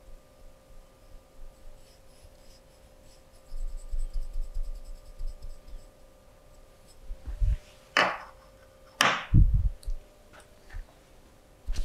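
Fingernails and hands scratching and rubbing over skin during a massage. There are soft low thumps and faint scratching first, then two louder sharp scratching strokes about eight and nine seconds in, followed by a few short taps.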